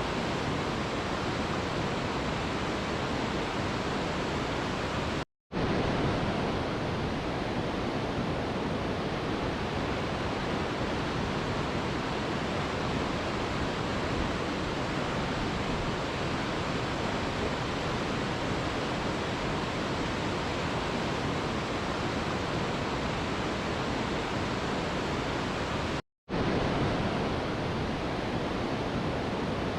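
Steady, even rushing of a waterfall, with no distinct splashes. It cuts out to silence for a split second twice, about five seconds in and again about 26 seconds in.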